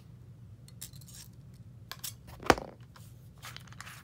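Small metal tools being handled: light scattered clicks and clinks from a cordless drill's chuck and wire, with one sharper click about two and a half seconds in, over a faint low hum.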